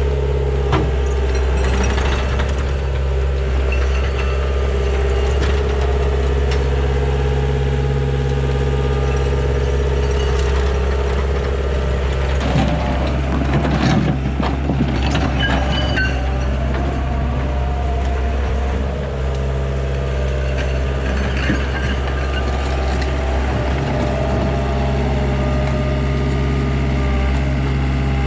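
Heavy diesel machinery engine running steadily, with a spell of clanking and scraping about halfway through.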